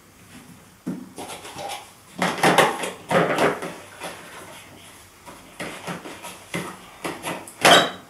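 Plastic parts of a wet and dry vacuum being handled: the pleated cartridge filter and its plastic end cap scrape and rattle against the motor head as they are fitted. There is a sharp plastic knock near the end, the loudest sound.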